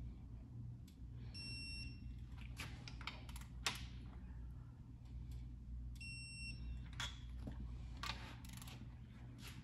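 Electronic torque wrench beeping twice, about four and a half seconds apart, each a short steady high beep, as the cylinder head bolts of a small-block Ford V8 reach set torque on the final pass. Sharp clicks of the wrench and socket between the beeps, the loudest about a third of the way in, over a low steady hum.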